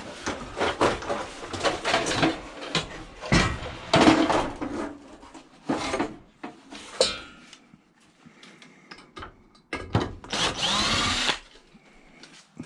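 A CRT television being pulled apart for its copper deflection yoke: repeated knocks, clatter and scraping of plastic and metal parts. Near the end a power tool whirs for about a second.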